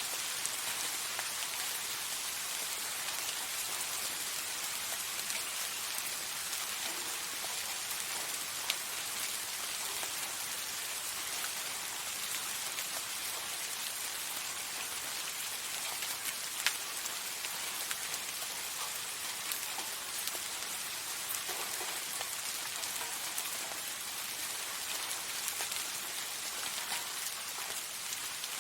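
Steady soft rain, a even hiss with scattered individual drop ticks, a couple of sharper ones standing out.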